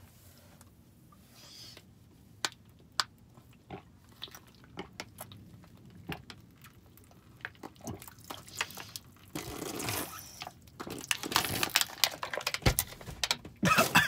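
A plastic water bottle crackling and clicking as it is handled, sparse at first, then a busier stretch of crinkling and liquid noise in the last few seconds.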